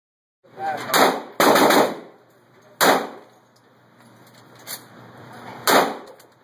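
Pistol shots fired in an indoor range: several loud reports at uneven intervals, the densest cluster about a second and a half in. Each shot is followed by a short echo off the concrete.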